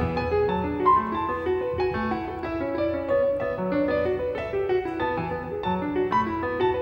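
Piano playing an instrumental passage of the song: a busy stream of single notes over lower chords, several notes a second, with no singing.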